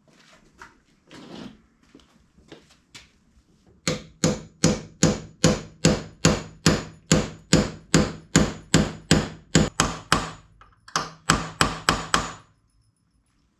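A hammer driving a lubricated pin into a car door hinge: a run of sharp, evenly spaced blows, about three a second, then a short pause and a final run of about six blows. Faint handling and rubbing come before the hammering starts.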